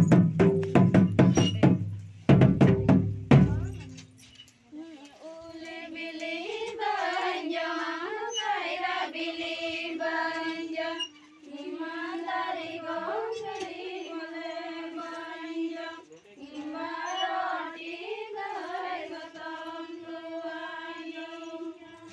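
A few loud drum strokes in the first four seconds, then a group of women singing a Santhali dong wedding song, a repeated phrase carried in one melody with short breaks between lines.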